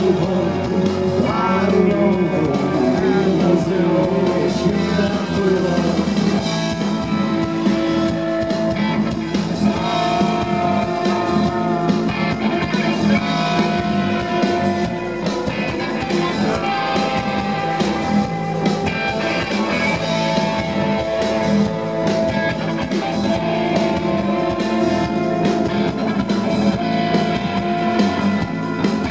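Live rock band playing a passage between sung lines: electric guitars with long held notes over electric bass and drum kit, heard loud through the PA.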